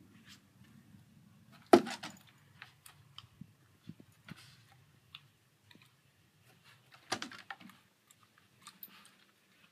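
A dog's claws clicking and tapping on wooden deck boards, with its collar tags jingling, as it noses and paws after a moth. There are two louder knocks, one about two seconds in and one about seven seconds in.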